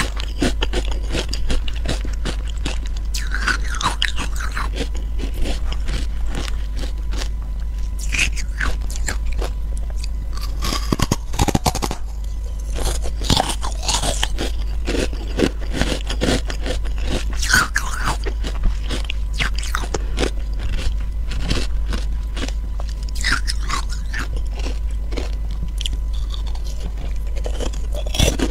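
Ice cubes dusted with matcha powder being bitten and chewed close to a lavalier microphone: a steady run of irregular sharp cracks and crunches.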